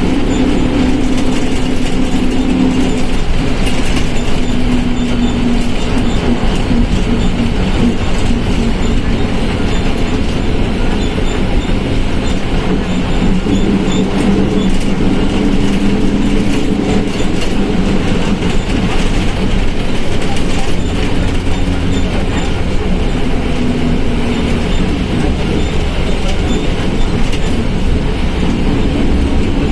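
Volkswagen Volksbus 17.230 OD diesel bus running under way, a loud, steady rumble with a drone whose pitch shifts up and down as it goes. The drone is the gearbox growl ("transmissão roncando") that the owner points out on this bus.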